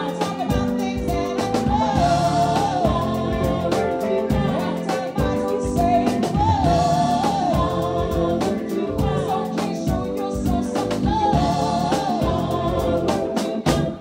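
Live band playing with a woman singing lead into a microphone: keyboards, electric guitar and a drum kit keeping a steady beat under her melody.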